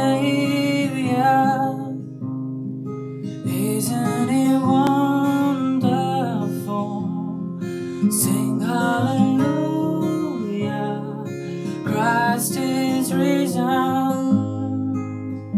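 Acoustic guitar with a capo, played in sustained chords under a man's solo singing voice, performing a worship song. Near the end the singing stops and the guitar rings on alone.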